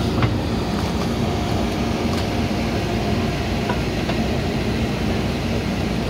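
JCB 3DX backhoe loader's diesel engine running steadily as the backhoe arm digs in wet mud, with a few faint metallic clicks and knocks from the arm and bucket.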